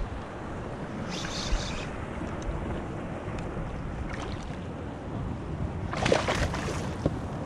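Steady wind rumble on the microphone. About six seconds in, a short burst of water splashing as the hooked tautog thrashes at the surface beside the kayak.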